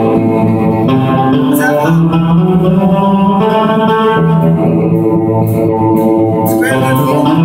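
Guitar playing a tune: held chords that change every second or two, with a few brief pick or strum strokes.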